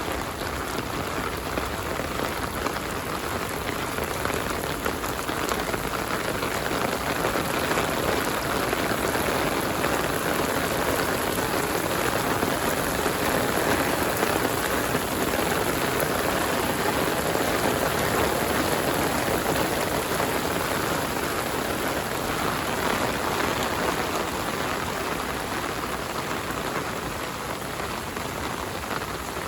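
Heavy rain falling steadily, a dense hiss of drops hitting the ground, growing a little louder through the middle and easing slightly near the end.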